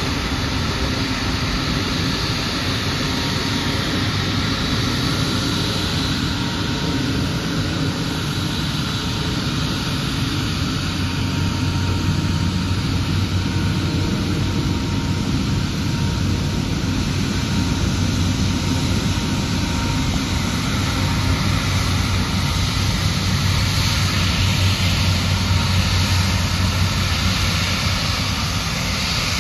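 Airbus A350 twin turbofans, Rolls-Royce Trent XWB, running at low taxi thrust as the airliner rolls slowly past and turns: a steady jet whine and rush with a faint steady tone, and a low rumble that grows stronger about a third of the way in.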